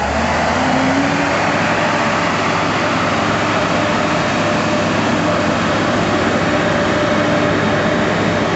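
Flash-flood torrent of muddy water rushing through a street: a loud, steady rushing noise.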